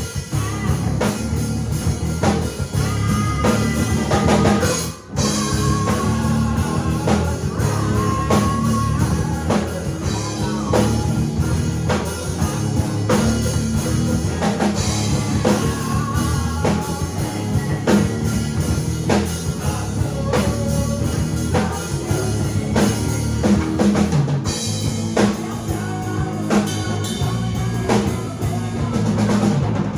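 A rock band playing live together: drum kit, bass guitar and guitar, with a brief stop about five seconds in.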